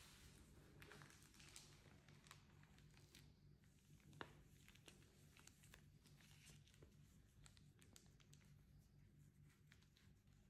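Faint handling sounds: cotton-gloved hands moving a paper booklet on a tabletop, soft crinkles and light scattered taps, with one sharper tap about four seconds in.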